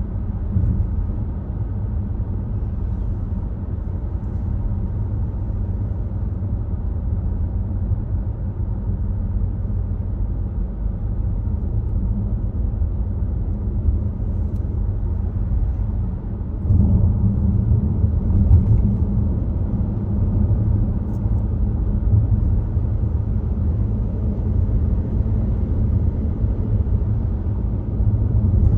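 Volvo XC60 driving on the road: a steady low rumble of tyre and engine noise, getting a little louder about two-thirds of the way through.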